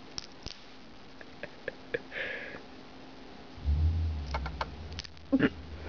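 Hedgehog chewing a piece of carrot with its mouth open: scattered small wet clicks and smacks, with a short sniffing hiss about two seconds in. A low steady hum joins about halfway through.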